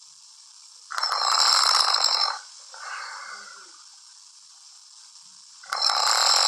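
A man snoring in his sleep: two long snores of about a second and a half each, about five seconds apart, with a softer breath a moment after the first.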